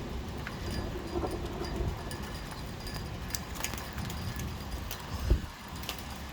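Heavy rain falling, with irregular drops tapping on a hard surface and one dull thump about five seconds in.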